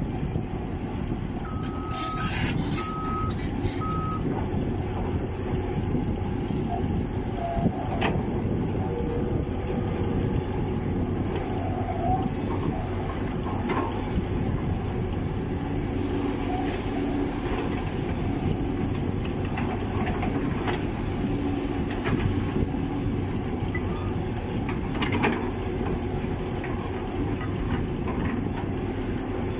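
Diesel engines of a Caterpillar excavator and tracked sideboom pipelayers running steadily. About two seconds in, a backup alarm gives three short beeps, and a few brief knocks come later.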